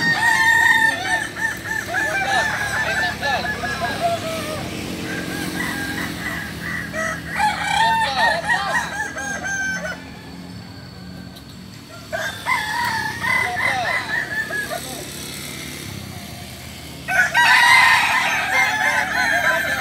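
Several kukuak balenggek roosters crowing in turn, their long crows broken into many short stepped notes, the breed's terraced crow. The crowing comes in bouts, with a quieter lull near the middle and a loud new crow starting near the end.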